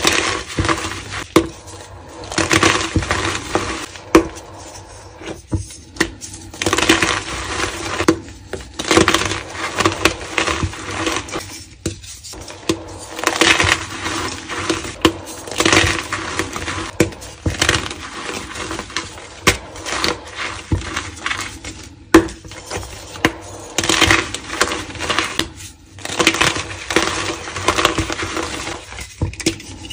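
Chunks of dyed gym chalk crushed and crumbled between bare hands: repeated gritty crunching as they break up into powder, with sharp snaps here and there.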